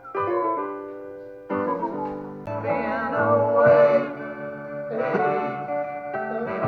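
A recorded song playing: piano chords struck every second or so and held, with other instruments.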